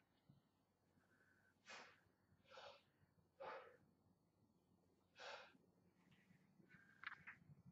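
Four short, forceful breaths of a man doing barbell back squats, each a brief hiss, coming about a second apart and then after a longer gap. A few faint clicks follow near the end.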